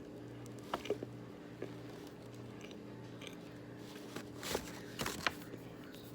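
Close-up crunching bites into chunks of Argo cornstarch: a couple of crisp crunches about a second in, then a louder cluster of crunches near the end.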